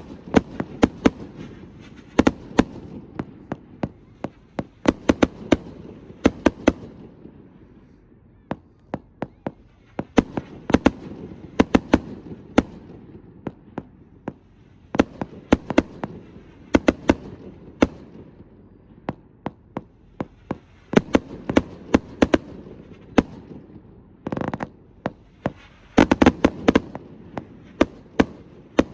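Astroboy consumer firework barrages going off in a finale: many sharp bangs in rapid clusters, one after another. There are short lulls at about 8 and about 14 seconds in.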